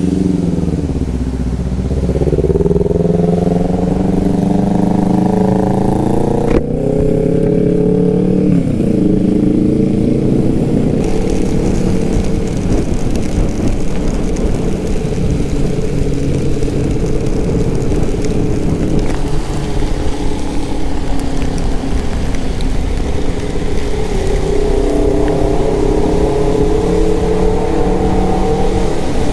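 Yamaha Aerox 155 scooter engine pulling away and accelerating, its pitch rising, then running fairly steadily at cruising speed and rising again near the end, with steady wind rush on the microphone.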